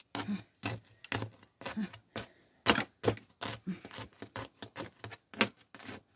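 Cutlery and dishes clinking at a meal table: a run of irregular light clinks and taps, about three a second.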